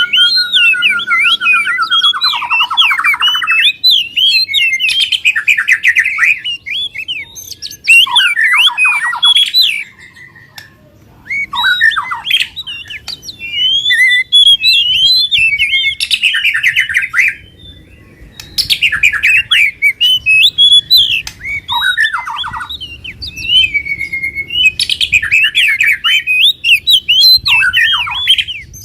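Songbirds singing in rapid, chattering bursts of sharp chirps, fast trills and whistled slides, broken by brief pauses: a mixed bird-song lure track of the kind played to get a quiet caged bird to start singing.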